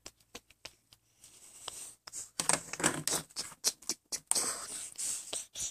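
Irregular clicks, taps and rustling from small objects being handled close to the microphone.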